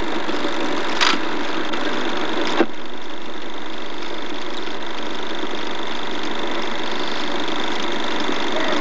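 Film projector running: a steady mechanical whir with a thin high tone through it, and two sharp clicks, about one and two and a half seconds in. No band music is heard; the film plays silent.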